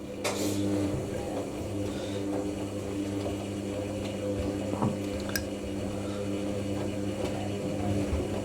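Hoover NeXtra HNL3146 washing machine's drum motor starting about a quarter of a second in and running with a steady hum, turning the drum through the slow saturation tumbles that soak the load, with water swishing in the drum.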